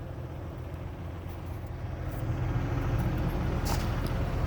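Heavy diesel paving machinery running with a steady low rumble that grows louder about two seconds in.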